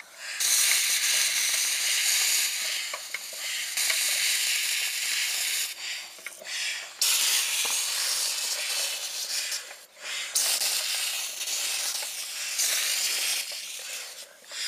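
Air hissing out of a bicycle inner tube in long stretches of a few seconds, each with a short break.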